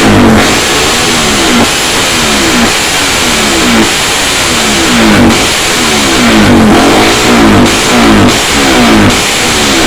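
Suzuki Satria FU motorcycle with a swapped-in Suzuki GSX engine being revved in repeated throttle blips, the engine note rising and falling back about once a second.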